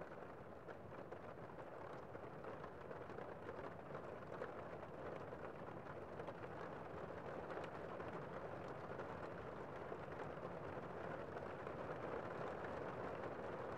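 Gentle rain falling on a window: a soft, steady hiss with faint scattered drop ticks, slowly growing a little louder.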